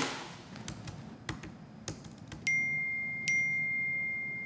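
A few light taps, then a phone's message-notification chime sounds twice, about a second apart, each a single high ringing note.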